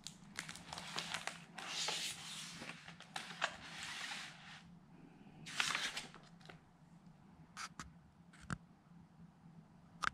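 Hardcover picture book being opened and its pages turned by hand: paper and glossy dust jacket rustling and swishing, with a louder page-turn swish about six seconds in, then a few light taps and clicks as the book is settled flat.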